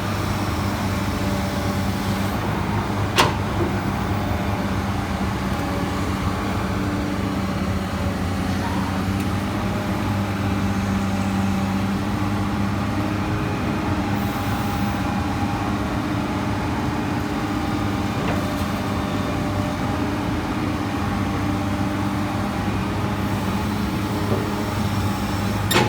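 Komatsu PC200 excavator's diesel engine running at a steady pitch, with one sharp knock about three seconds in.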